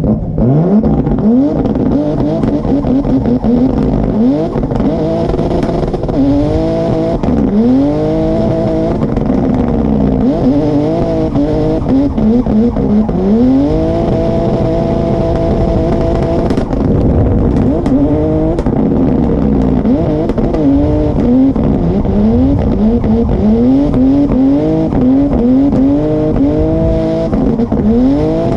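BMW E30 drift car's engine revving hard, its pitch climbing and dropping again and again as the throttle is worked, with tyres squealing. About halfway through the revs hold at one high pitch for about three seconds, then drop off suddenly.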